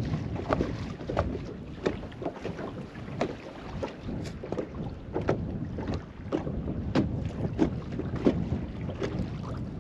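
Wind buffeting the microphone in a low rumble, with small waves slapping irregularly against the boat's hull, about one or two slaps a second.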